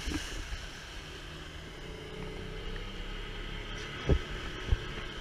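Small boat's outboard motor running steadily under way, with the hiss of water along the hull and a sharp knock about four seconds in.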